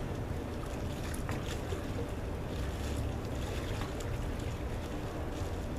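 Steady low rumble of wind on the microphone and outdoor street noise, with a few faint crackles and light water sounds from blocks of ice in plastic bags being handled over the water-filled, plastic-lined pickup bed.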